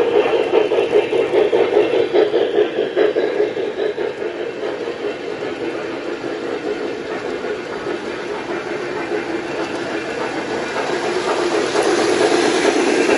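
Lionel O scale model trains running on three-rail track: a steady, dense rattle of wheels and motors over the rails. It grows louder about 11 seconds in as a train passes close by.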